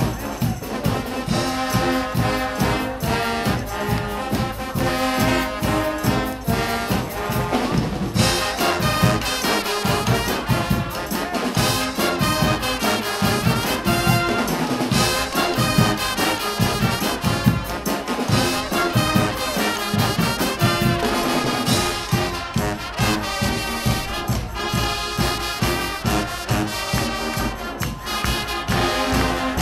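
Guggenmusik carnival band playing loudly: trumpets, trombones and sousaphones in full brass chords over a drum kit, marching drums and crashing cymbals keeping a steady, driving beat.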